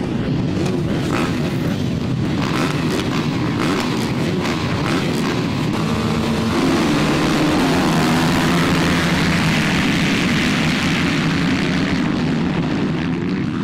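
A full field of motocross bikes revving their engines together on the start line. About six seconds in they grow louder and accelerate away as a pack.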